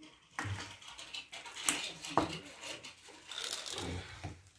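Handling noise of plastic oil containers being set down and adjusted: irregular light clicks and knocks, with one sharp click a little under two seconds in.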